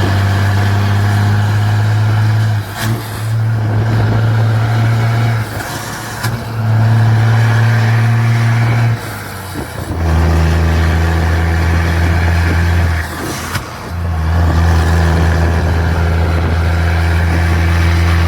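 Loaded truck with a straight-pipe exhaust pulling away hard, its engine note rumbling steadily and cutting out briefly at gear changes, four times.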